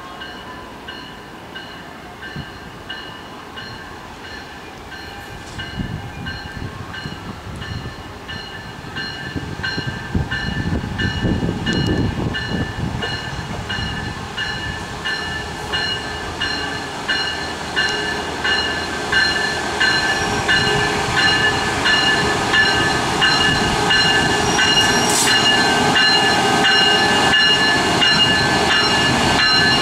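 Siemens SC-44 Charger diesel locomotive and its train growing steadily louder as they approach and draw alongside. Over the engine and wheel noise, the locomotive's bell rings evenly and without a break.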